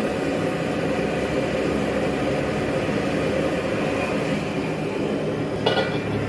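Gas wok burner running with a steady roar. About two thirds of the way in, a short metal clank as the steel wok is set back down on the burner.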